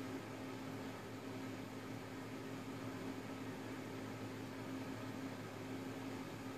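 Desktop PC's cooling fans, water-cooler radiator and case fans, running steadily: an even whirring hiss with a constant low hum under it.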